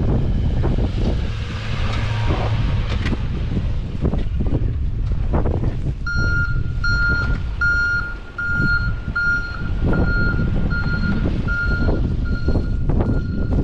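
Strong wind buffeting the microphone throughout. From about six seconds in, a snowplow truck's reversing alarm beeps evenly at one pitch, a little under twice a second.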